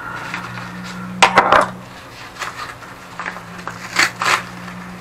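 A plastic parcel bag being handled and cut open with a knife on a tabletop: rustling, with a cluster of sharp clicks and knocks about a second in and another near four seconds, over a steady low hum.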